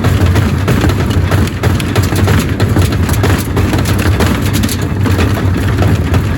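Gorenje washing machine running with loose bricks in the drum: a steady low hum under constant irregular banging and clattering as the bricks are thrown around.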